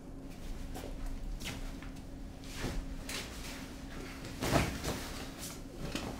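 A person shuffling and handling things, a few soft knocks and rustles with the loudest about four and a half seconds in, over a steady low hum.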